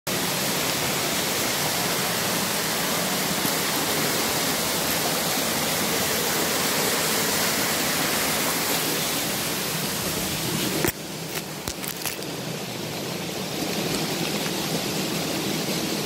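Waterfall rushing, a steady hiss of falling water. About eleven seconds in, a sharp click and a few handling knocks, after which the rush is a little quieter.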